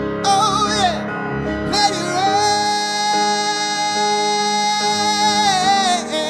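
Male vocalist singing a soulful line over grand piano chords: a short wavering run, then one long high note held for about three seconds that falls away at its end.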